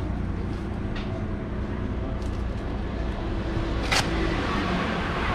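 Steady low rumble of street traffic, with a small click about a second in and a sharp click about four seconds in.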